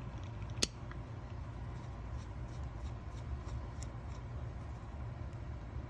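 Small metal clicks and light ticks of a screwdriver working a screw out of a Tillotson HL87A carburetor body: one sharp click less than a second in, then faint ticks about three a second, over a steady low hum.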